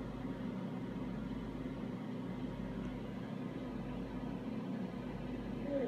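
Steady low hum with a few steady low tones over an even hiss, unchanging throughout.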